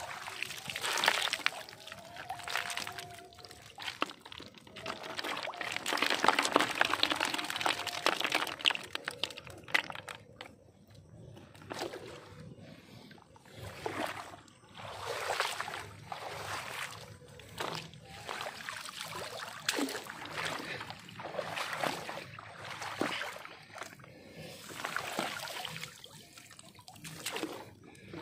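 Shallow floodwater sloshing and splashing as someone moves through it, in repeated surges about every one to two seconds, with one longer, louder surge partway through.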